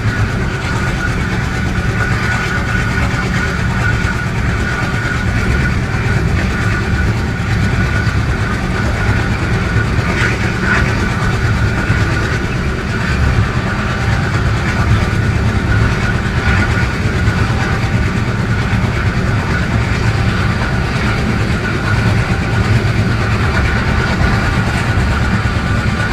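ALCO WDM3A diesel-electric locomotive's 16-cylinder turbocharged engine running steadily, heard from the cab, with a steady high whine over the heavy low engine note.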